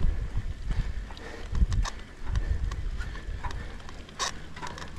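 Mountain bike being pedalled through soft sand: an uneven low rumble in surges with scattered clicks and crunches from tyres and drivetrain.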